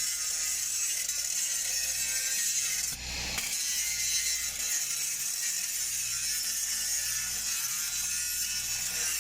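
Stick (SMAW) welding arc crackling and hissing steadily as a downhill pass is run on large-diameter pipe. The crackle drops out for a moment about three seconds in, then picks up again.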